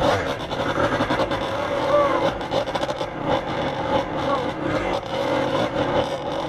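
Kawasaki KDX two-stroke single-cylinder dirt bike engine running while the bike is ridden, holding a fairly steady pitch that wavers slightly.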